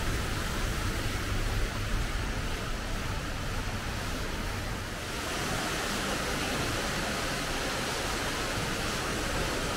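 Steady rushing splash of an indoor artificial waterfall and creek, a hiss that grows louder about five seconds in.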